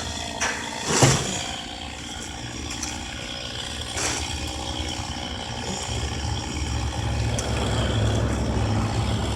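A low engine rumble that grows louder about six seconds in, with sharp knocks about half a second, one second and four seconds in.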